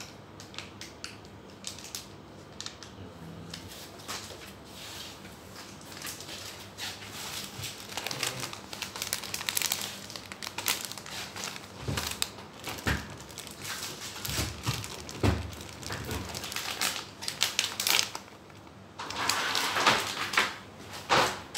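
Plastic bags and packets crinkling and rustling as they are handled, in irregular crackles that get denser through the middle and louder near the end.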